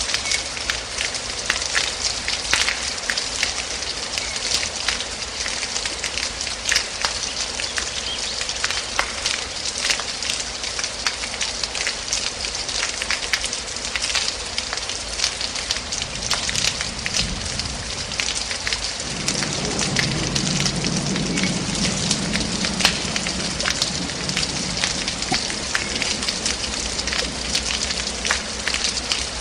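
Steady heavy rain, a dense patter with many distinct drop hits. A low rumble joins about two-thirds of the way through and fades near the end.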